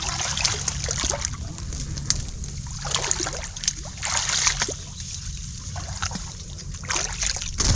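Muddy water splashing and sloshing in irregular bursts as people wade and grope with their hands along the bottom of a shallow ditch for freshwater mussels, over a steady low rumble.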